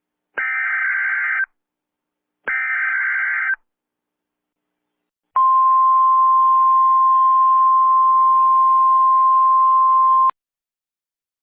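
Emergency Alert System header: two short bursts of screechy digital data tones (the SAME header), then after a gap a single steady attention tone held for about five seconds that cuts off abruptly.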